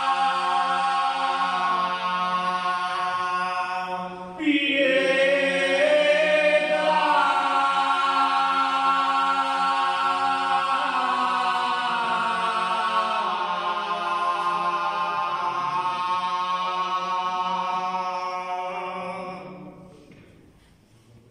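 Men's voices singing a slow religious chant a cappella, with long held notes. There is a brief break about four seconds in before the next phrase begins, and the singing fades out near the end.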